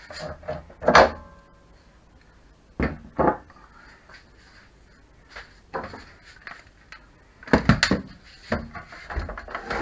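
Clicks and knocks from a bicycle cassette and freehub being worked off a Tacx Flux smart trainer by hand. One sharp metallic knock about a second in rings briefly, a few more knocks follow, and a cluster of clatter near the end comes as parts and tools are set down on the workbench.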